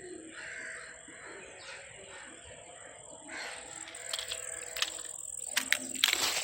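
Birds calling outdoors, a few harsh calls in the first half, over a steady high-pitched tone, with scattered sharp clicks near the end.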